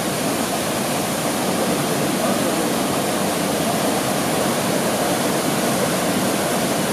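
Steady rush of a shallow forest stream's water flowing over rocks.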